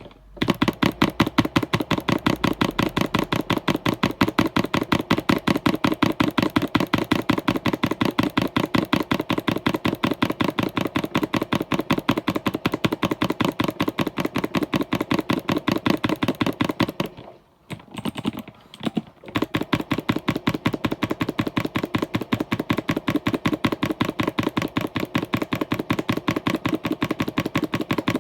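Computer keyboard being typed on fast and steadily, a rapid, even run of key clicks. About two-thirds through the typing stops for roughly two seconds, leaving only a few scattered keystrokes, then carries on.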